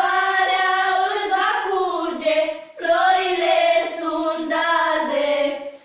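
A group of schoolgirls singing a traditional Romanian Christmas carol (colind) together, unaccompanied, in two phrases with a brief pause for breath about halfway.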